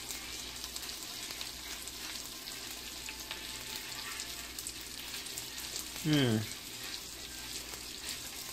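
Swordfish steaks sizzling as they fry in a pan of marinade, a steady crackling hiss. A brief voice sound, falling in pitch, comes about six seconds in.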